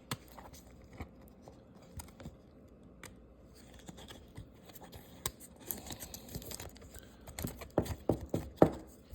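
Trading cards and their cardboard box being handled: scattered light clicks, taps and rubbing of card stock, with a quicker run of louder clicks near the end.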